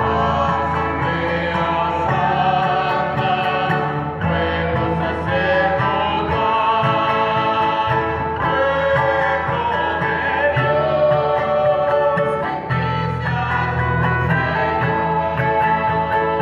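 A choir singing a church hymn with instrumental accompaniment, over steady bass notes that change every several seconds.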